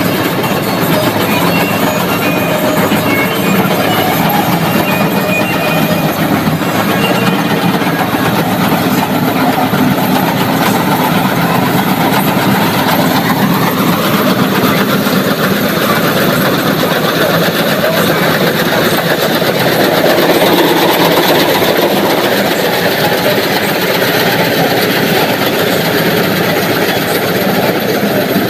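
Tractor-based combine harvester on a John Deere 5075E running under load while it cuts paddy: steady diesel engine noise mixed with the clatter of the cutter bar, reel and threshing drum. The pitch shifts up slightly about halfway through.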